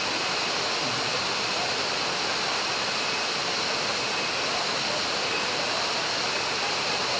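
Waterfall: falling water making a steady, even rush of noise, with no change in level.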